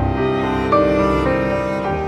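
Slow instrumental background music with held notes, the melody moving to a new note every half second or so.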